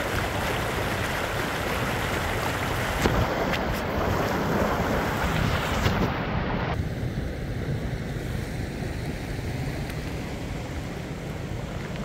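Wind buffeting the microphone over the steady rush of a fast-flowing stream. About seven seconds in, the sound abruptly turns duller, losing much of its hiss.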